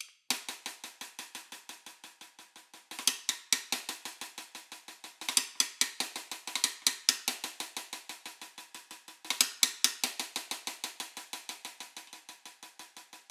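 Solo snare drum played with sticks in an even stream of quick strokes, about five a second, with three loud accented surges that each fade back to soft playing.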